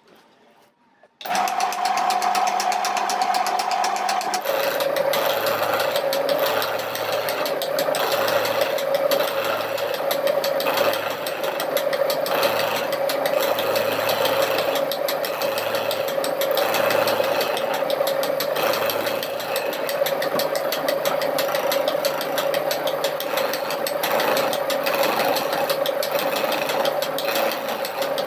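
A power tool's motor starts about a second in and runs steadily. Its whining tone drops a step in pitch about four seconds in and holds there.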